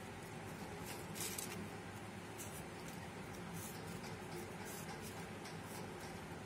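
Faint, irregular rustles and light scrapes of paper finger puppets being handled and slid on a wooden table, over a steady low room hum.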